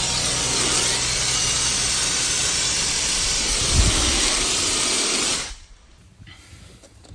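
Upturned can of keyboard cleaner (canned air duster) spraying through its straw: a loud, steady hiss that cuts off suddenly about five seconds in, with a brief low bump partway through. Held upside down, it sprays liquid propellant that freezes on contact.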